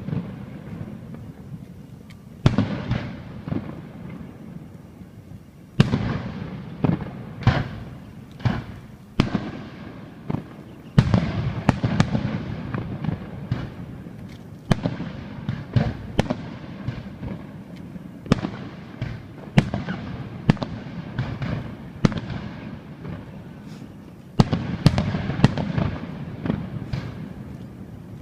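Fireworks going off in a display: a series of sharp bangs in clusters, each followed by crackling that fades, with busier volleys about halfway through and near the end.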